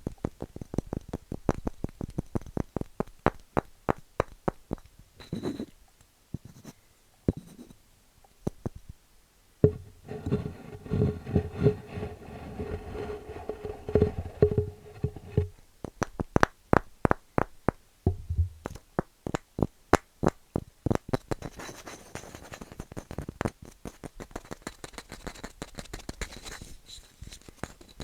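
Rapid tapping and scratching on wooden objects at close range, in quick runs of sharp taps. For about six seconds in the middle, a steady humming tone sounds under the taps.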